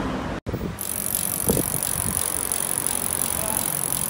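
Road bicycles riding past on a street, with a fast rattling tick of coasting freewheel hubs and tyre noise. The sound cuts out for an instant about half a second in.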